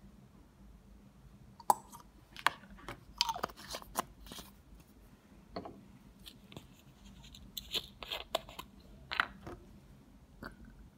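Small bottles, plastic screw caps and a dropper being handled and set down on a bench: scattered clicks and knocks, busiest from about two to four and a half seconds in and again around eight to nine seconds in.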